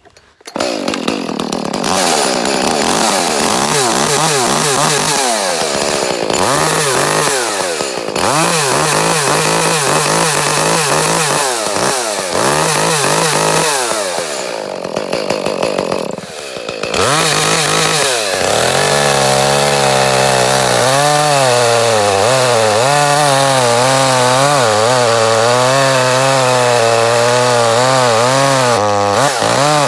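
Echo CS-310 two-stroke chainsaw running and revved up and down again and again, its sound dropping away sharply several times, then settling to an uneven, wavering run. This is the top-end cutting-out fault when revved warm, which the owner traced to a bad spark plug.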